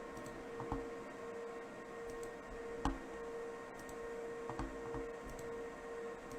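A few sharp, isolated clicks from working a laptop, about three spread across a few seconds, over a faint steady hum.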